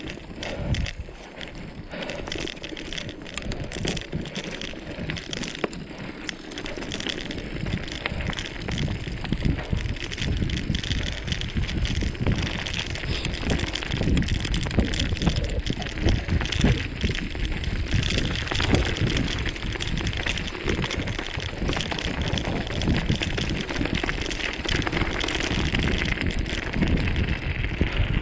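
Mountain bike descending a rough trail: tyres rolling over dirt and stones with many small knocks and rattles, louder from about halfway.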